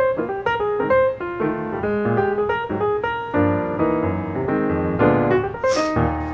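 Background piano music: a steady run of struck notes over lower chords.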